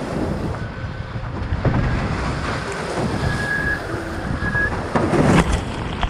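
Wind buffeting the microphone and water rushing past the hulls of a Nacra 17 foiling catamaran sailing at speed in rough sea, with a louder rush of spray near the end.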